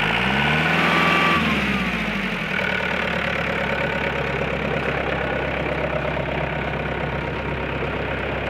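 Bobcat 873 skid steer's diesel engine revving up briefly, then dropping back to a steady idle after about two seconds.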